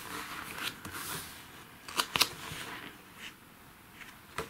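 Stiff pages of a thick booklet being turned by hand: paper rustling and swishing, with two sharp snaps of a page close together about two seconds in.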